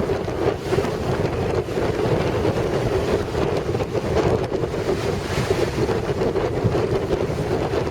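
Gale-force wind buffeting the microphone in a steady, gusty rumble over the crash and wash of big storm waves on Lake Superior's shore.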